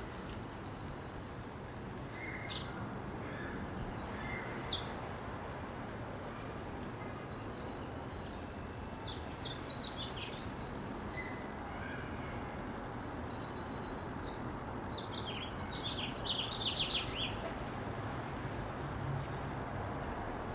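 Small songbirds giving scattered short chirps, with a quick run of about eight notes about three quarters of the way through, over a steady background hum.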